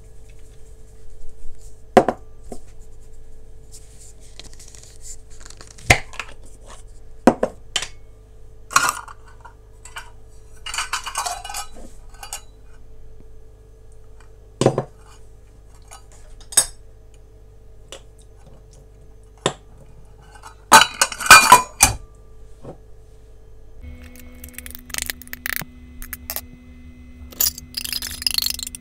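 Kitchen utensils and dishes clinking, knocking and scraping as the cake is prepared, with a dense loud clatter about two-thirds of the way through. A faint steady hum lies underneath and drops in pitch near the end.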